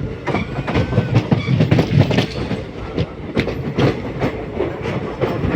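Train running along the track: a steady rumble with the irregular clatter and knocking of wheels over rail joints.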